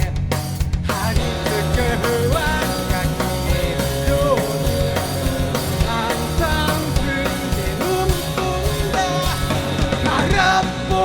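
Live rock band playing a song, with drum kit, bass and guitar.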